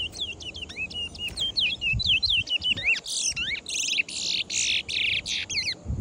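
Small caged songbird singing a rapid run of chirps and whistled notes. About three seconds in it switches to louder, buzzy, scratchy notes, which stop just before the end.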